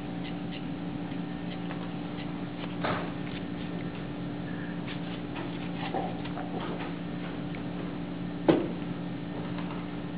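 A steady low hum with many faint ticks and a few sharper knocks; the loudest knock comes about eight and a half seconds in.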